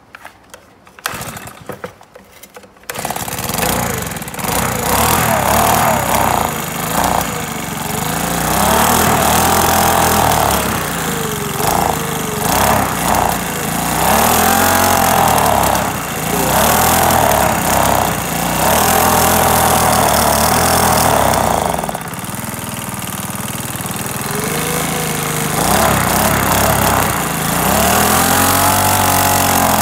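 Makita four-stroke leaf blower engine starting about three seconds in, after a few clicks, then running loud and being revved up and down repeatedly. It drops back to a steadier idle for a few seconds about two-thirds through, then revs again.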